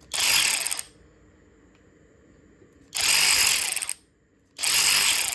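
Sealey 1/2-inch cordless ratchet's brushless motor run three times, in short bursts of about a second each: one at the start, one about three seconds in, and one near the end.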